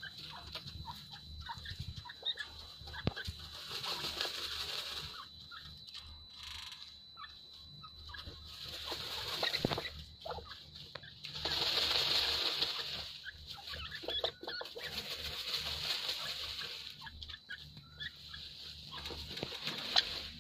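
A group of grey francolins dust-bathing in dry soil: repeated spells of scuffling, wing-shuffling and scratching in the dust, with scattered small clicks and scrapes.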